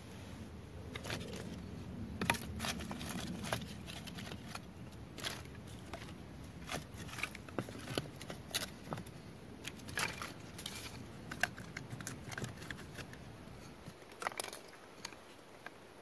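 Dry twigs and kindling being handled and laid into a stone fire pit: irregular light clicks and snaps of small sticks, with some rustling. A low background rush drops away about two seconds before the end.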